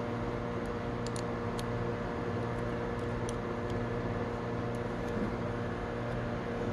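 Steady room hum, like an air conditioner or fan running, made of several steady tones, with a few faint light clicks of small parts being handled during hand assembly.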